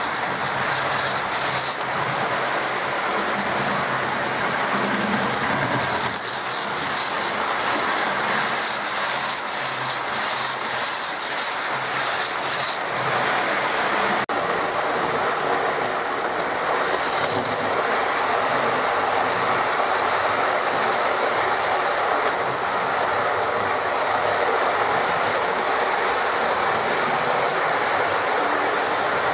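Hornby Smokey Joe 0-4-0 model locomotive running on its track and hauling a long rake of coaches, with a steady running noise and wheels clicking over the rail joints. The sound changes abruptly about halfway through.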